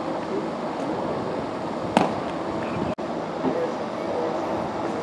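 Ballpark crowd chatter, steady and indistinct, with one sharp crack about two seconds in. The sound drops out for an instant near three seconds in.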